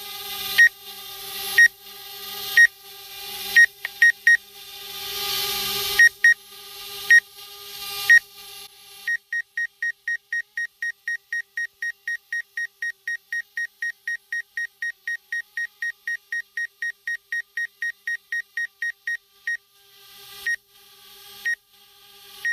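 Electronic warning beeps, about once a second, over the steady whirring hum of a DJI Spark drone's propellers. The hum cuts out about eight seconds in, and the beeps become rapid, about four a second, for some ten seconds. Then the hum and the slower beeps return.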